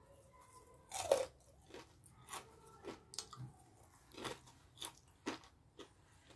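Crunchy chewing of crispy deep-fried battered onion: a loud bite about a second in, then a run of crunches every half second or so.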